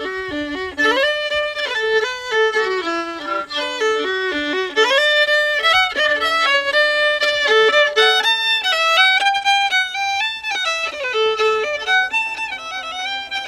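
Solo fiddle playing a tune, bowed with quick changes of note, several notes a second.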